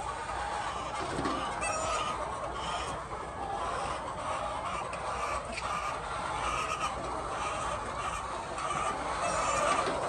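Many chickens clucking at once, a steady dense chatter of a flock of hens.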